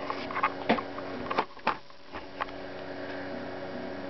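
Handling noise: a run of sharp clicks and taps during the first two and a half seconds as the flubber and camera are handled, over a steady electrical hum that carries on alone afterwards.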